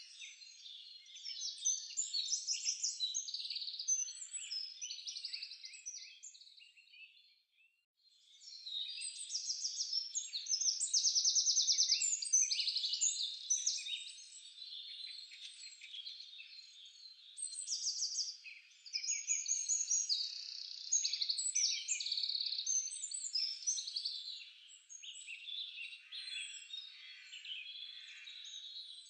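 Many small birds chirping and trilling together in a dense, continuous birdsong chorus. It fades out briefly about seven seconds in, then resumes.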